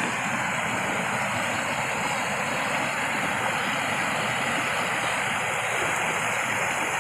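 Steady rushing noise with no distinct events, at an even level throughout.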